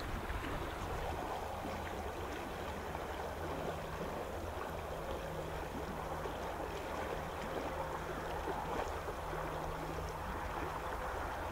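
Shallow river current running over a riffle: a steady rush of water.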